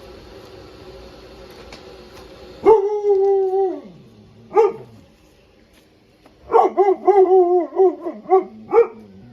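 Husky/Malamute barking and howling: a long, drawn-out howl about three seconds in, a single bark near five seconds, then a quick run of short, wavering howl-barks over the last three seconds.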